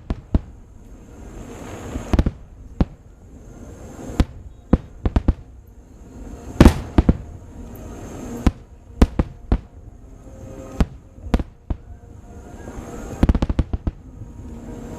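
Aerial fireworks exploding: a string of sharp bangs at irregular intervals, some coming in quick clusters, with the loudest about six and a half seconds in and a tight volley near the end.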